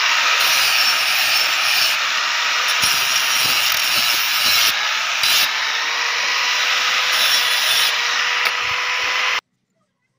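Angle grinder with a flap disc running and grinding a rusty steel blade: a steady harsh hiss over a thin motor whine. It cuts off suddenly near the end.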